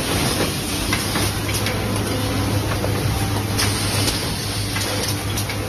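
Workshop machinery running: a steady low hum under a constant mechanical noise, with scattered light clicks and knocks.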